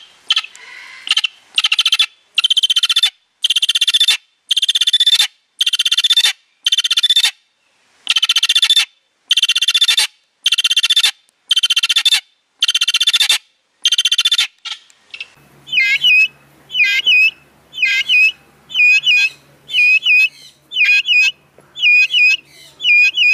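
Vulturine guineafowl calling. A long run of loud, harsh, raspy calls comes about every ¾ second. About fifteen seconds in, it gives way to a run of shorter, sharper calls that dip and rise in pitch at a similar pace, over a steady low hum.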